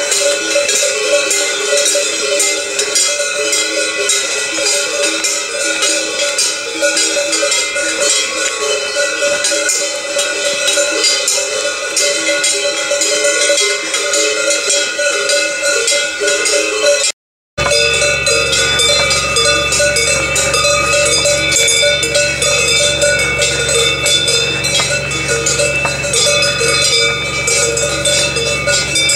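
Many cow bells clanging together at different pitches as a herd of cattle walks along. The sound cuts out for a moment a little after halfway, then carries on with a low hum underneath.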